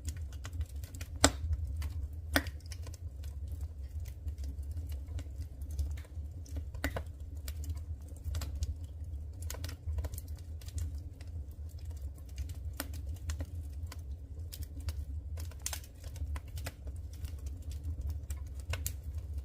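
Firewood crackling and popping as it burns in a wood stove: irregular sharp snaps, a few louder pops, over a steady low rumble.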